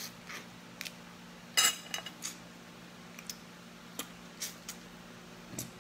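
Close-up eating sounds of someone picking apart and sucking on alimasag (blue swimming crab) legs by hand: scattered short clicks and smacks, with one louder sharp noise about one and a half seconds in. A faint steady low hum runs underneath.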